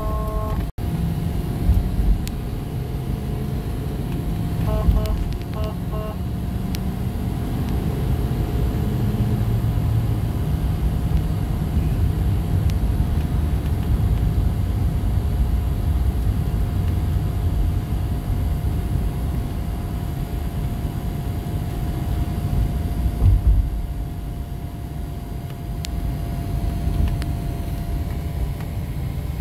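Steady road and engine noise inside a moving Ford F-250 pickup's cab, with a faint steady whine throughout. A few short beeps come about five seconds in, and there are a couple of low thumps.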